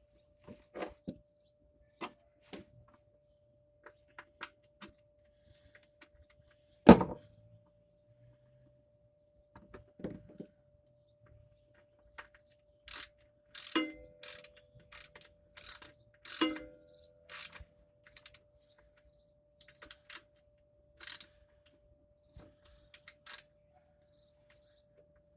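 3/8-inch ratchet wrench clicking in short back-and-forth strokes on a lawn mower's oil drain plug, a burst of clicks about once a second through the second half. A single loud knock about a third of the way in.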